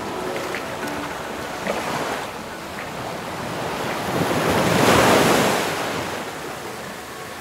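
Ocean surf washing in against the shore: a swell of noise that builds to a peak about five seconds in and then falls back, with wind buffeting the microphone.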